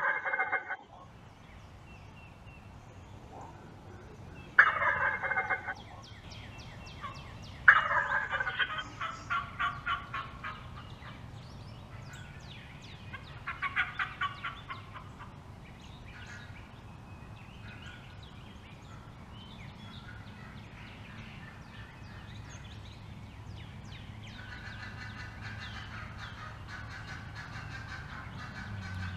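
Wild turkeys calling: a hen's sharp, rapid cutting and a tom's gobbling. The calls come in several loud outbursts, right at the start, about five seconds in, from about eight to ten seconds and around thirteen to fourteen seconds, then turn softer and steadier near the end. A hen cutting this hard is agitated, trying to draw the gobbler away from the decoys.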